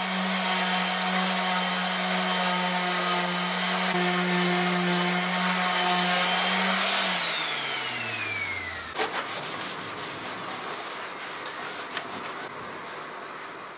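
DeWalt 125 mm random orbit sander running steadily on a wooden seat, with a shop vacuum drawing dust through a hose on it. About seven seconds in the sander is switched off and its whine falls in pitch as it spins down, while the vacuum keeps running; a sharp click comes near the end.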